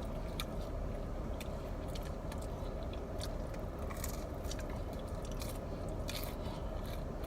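A person chewing and biting into sauce-dipped bread close to the microphone: many short, wet mouth clicks over a steady low rumble.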